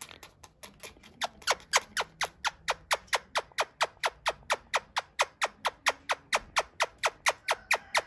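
Indian ringneck parakeet making a rapid, even series of sharp clicks, about four a second, faint at first and growing louder within the first second or so.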